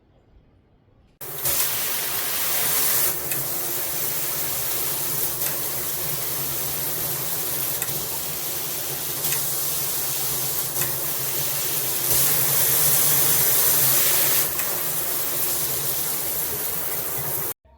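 Water spraying from a handheld shower head, a steady hiss of spray. It starts suddenly about a second in and cuts off just before the end, and is louder for a couple of seconds at the start and again about twelve seconds in.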